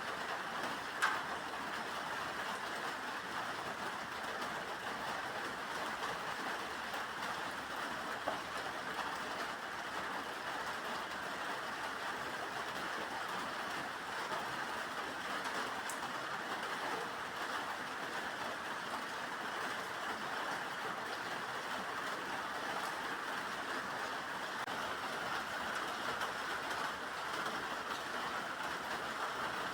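Steady rain: an even, unbroken hiss with a faint tick about a second in.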